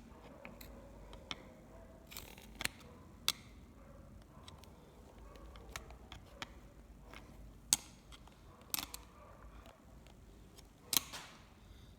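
Irregular sharp clicks and taps of small hard objects being handled, with a few short scraping rustles; the loudest click comes about three-quarters of the way through.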